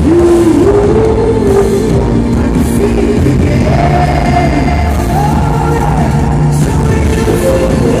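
Live pop-rock band playing loudly in an arena, with drums, bass and a sung melody, heard from the stands.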